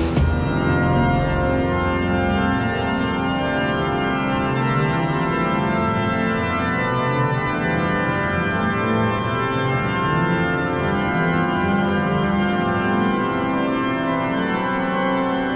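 Organ music playing slow, held chords.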